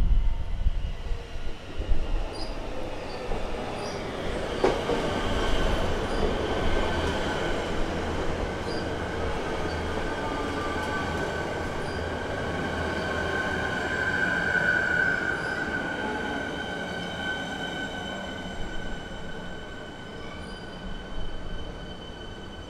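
Melbourne suburban electric multiple unit running in along the station platform: the rumble of its wheels on the track with a high, steady squeal that is loudest about two-thirds of the way through.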